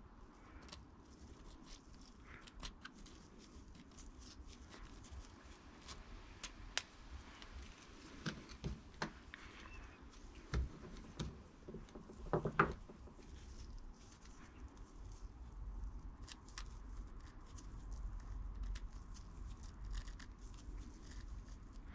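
Tip of a small screwdriver scraping and picking crusty rust and grime out of the threads of a brake caliper bolt: faint, irregular metal scratches and clicks, with a short run of louder clicks a little past halfway.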